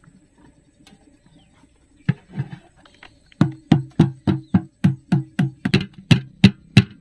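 Repeated knocking on the base of an upturned cooking pot to loosen a steamed egg block onto the lid, each knock with a short hollow ring. A couple of softer knocks come first, then steady strikes about three a second from halfway through, getting quicker near the end.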